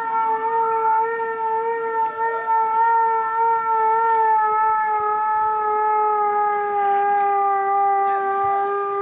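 Air-raid siren sounding one long steady wail, its pitch sagging slightly about halfway through: the W Hour signal marking the outbreak of the Warsaw Uprising. A second, fainter siren glides up and down in the first few seconds.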